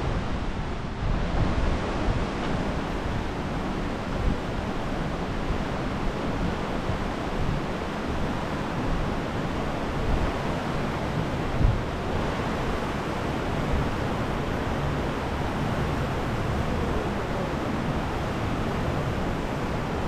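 Steady rush of Slippery Rock Creek's white water, an even hiss with no pauses, and a few brief knocks, the loudest a little past the middle.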